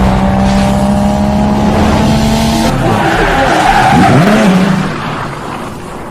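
Loud car engine sound with tyre squeal, the pitch bending around the middle and the whole sound fading away over the last second or so.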